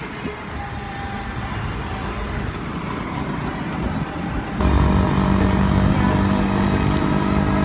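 Motorized tricycle running while carrying a passenger, with road and wind rumble; a little past halfway it abruptly gets louder, with a steady engine hum.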